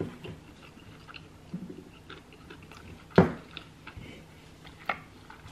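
Close-miked chewing of a mouthful of cheeseburger: soft wet clicks and crackles. One sharp, louder click comes about three seconds in, and a smaller one near the end.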